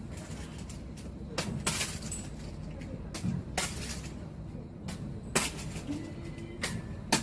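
Scattered short, sharp clicks and taps, about eight of them, over a low steady background noise.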